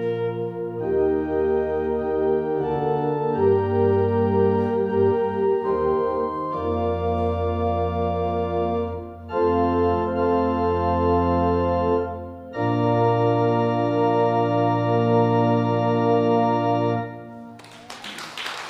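Church organ playing a hymn in full sustained chords that change every second or few, ending on a long held chord that is released about a second and a half before the end. Hand clapping starts just after the release.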